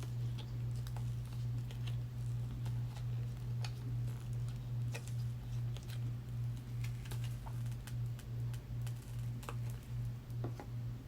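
A steady low hum that pulses about twice a second, with a few faint light clicks and taps scattered over it.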